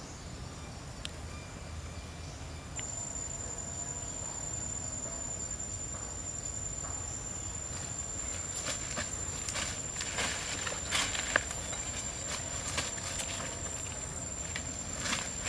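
An insect, cricket or cicada-like, calling with a steady high-pitched whine that starts about three seconds in and holds on. In the second half, scattered clicks and rustling knocks sound over it.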